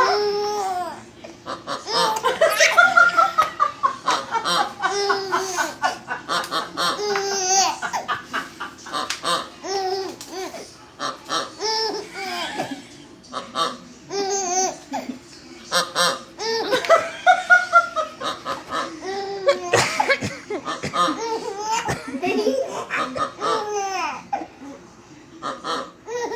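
Baby laughing hard in repeated fits of laughter, bursts coming again and again with short pauses between.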